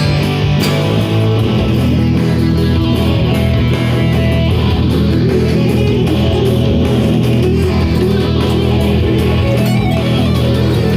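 Guitar played continuously with rapid, steady picking as a right-hand warm-up exercise.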